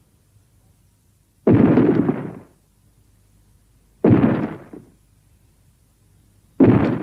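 Godzilla sound-effect booms: three loud explosion-like impacts, evenly spaced about two and a half seconds apart, each dying away over about a second.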